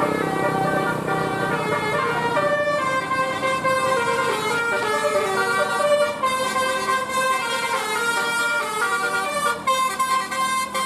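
Telolet Basuri multi-tone bus horn playing a tune, a run of stepped, held notes that change several times a second.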